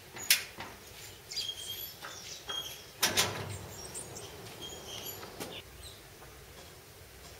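Corrugated sheet-metal gate: a sharp click just after the start, then the gate clanging shut about three seconds in, which is the loudest sound. Short bird chirps sound now and then.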